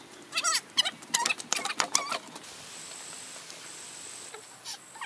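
Animal calls: a rapid run of short, squeaky calls for about two seconds, then they stop.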